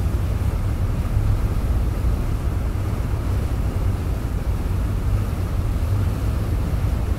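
Steady low rumbling noise with no clear tone, rhythm or separate events.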